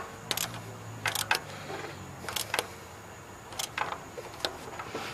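Hand tools tightening an alternator mounting bolt: irregular metallic clicks and clinks, one or two at a time, several over a few seconds.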